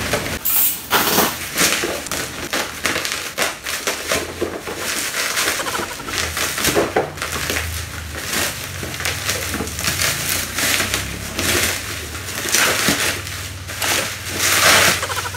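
Plastic parcel wrapping crinkling and rustling as it is cut open and pulled apart by hand, in irregular bursts.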